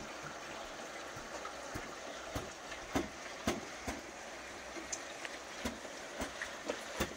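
Steady rain falling, with irregular sharp taps of drops landing close by.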